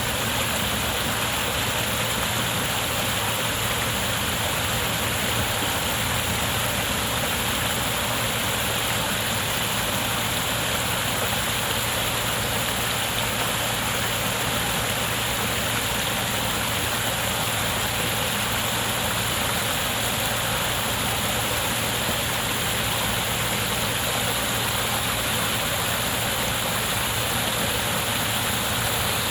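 Waterfall: water pouring steadily in an unbroken rush, with a constant low rumble beneath it.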